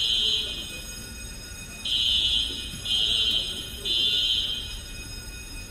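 Fire alarm sounder going off while the hangar's high-expansion foam system discharges: a high-pitched alarm tone in groups of three pulses about a second each, with a pause of about a second between groups. Faint voices underneath.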